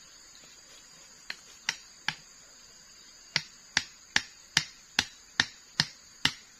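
Machete (golok) striking the top of a bamboo stake to drive it into the ground: sharp knocks, three spaced ones at first, then an even run of about two and a half blows a second from about halfway through.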